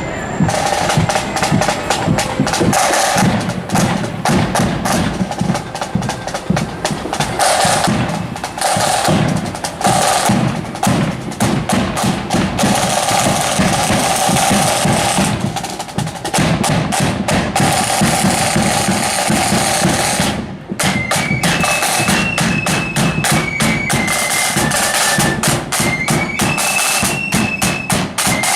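Marching flute band's snare and bass drums beating a parade cadence. About twenty seconds in the flutes join, playing a tune over the drums.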